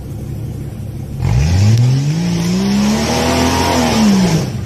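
Off-road SUV's engine revving hard under load as it climbs a steep rock ledge. The revving starts about a second in, rises in pitch, holds, then drops near the end, over a loud rushing noise.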